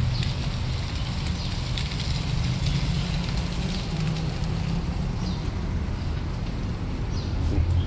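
Steady low rumble of outdoor background noise, with a few short faint high chirps.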